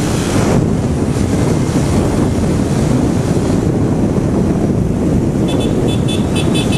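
Steady wind rush over the camera microphone and road noise from a Suzuki Raider 150 Fi motorcycle being ridden at speed. A quick run of short high beeps comes near the end.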